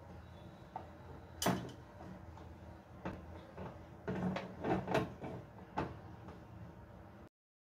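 Knocks and clunks of a metal stovetop waffle iron being handled on the burner: one sharp knock about one and a half seconds in and a cluster of knocks around four to five seconds in, over a low steady background. The sound cuts off abruptly near the end.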